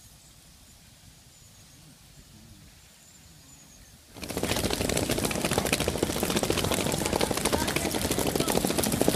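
Faint outdoor quiet with a few faint high bird chirps. About four seconds in, a loud, dense clattering rattle starts: wheeled suitcases rolling over paving stones.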